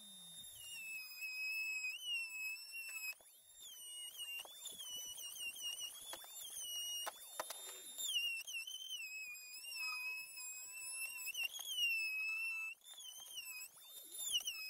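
A high, warbling electronic tone that keeps gliding up and down in pitch, with faint clicks and knocks under it.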